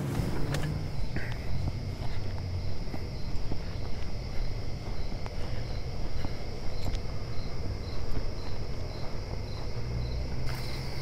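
Insects trilling steadily, with a second high chirp pulsing about twice a second, over a continuous low rumble.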